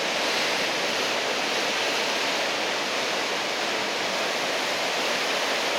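Heavy ocean surf from a typhoon swell breaking along the shore, a steady rush of white noise without distinct crashes.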